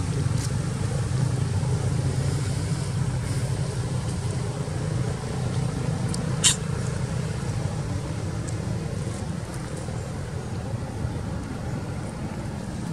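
Steady low outdoor rumble, with one short, sharp high squeak about halfway through.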